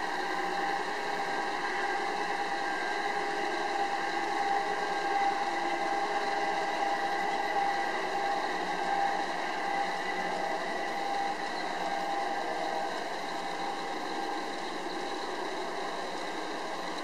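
LGB garden-scale model train running on its track: a steady whir with a faint, even whine from the F7 locomotives' drives.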